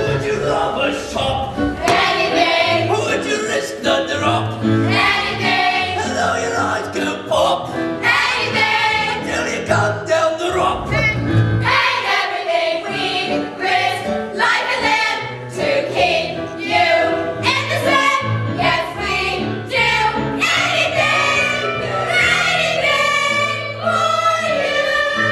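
Song from a stage musical: singers with instrumental accompaniment. Near the end a woman's voice holds a long, wavering note.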